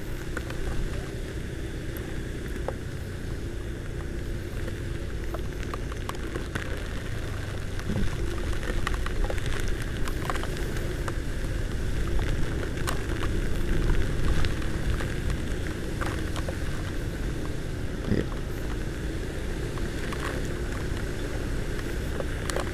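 Riding a Honda Vario 125 scooter through a rainstorm and floodwater, heard at a helmet-mounted camera: a steady rumble of wind and water spray, with the scooter's engine humming underneath and raindrops ticking on the camera.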